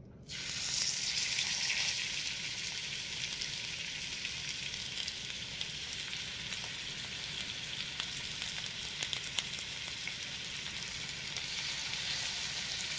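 Raw stuffed chicken breasts sizzling as they are laid into hot olive oil in a cast-iron skillet, with scattered pops and crackles. The sizzle starts suddenly as the first breast goes in, is loudest for the first couple of seconds, then settles into a steady fry.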